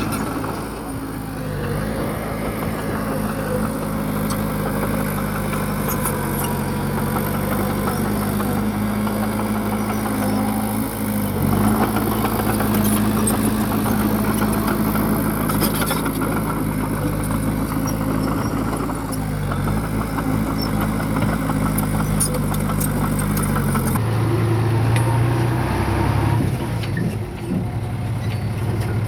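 Heavy diesel engine of a bulldozer running steadily under work, with a few short clanks; the engine note changes near the end.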